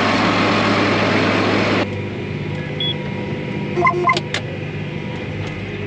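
A vehicle engine running steadily under loud rushing noise that cuts off abruptly about two seconds in, leaving a quieter, steady engine hum. A few short high chirps and two sharp clicks come about four seconds in.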